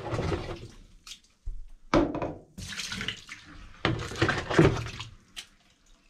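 Dirty water being scooped by hand and with a plastic cup from the bottom of a washing machine's outer bowl and poured into a stainless steel sink, in several splashing bursts.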